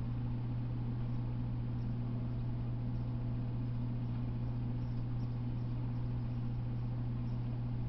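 Steady low hum with a constant hiss over it, unchanging throughout, with a few faint high ticks.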